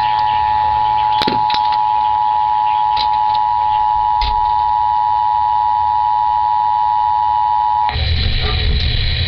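Emergency Alert System attention signal received on FM radio: two steady tones sounding together, held for about eight seconds. It then cuts off into a buzzing hiss.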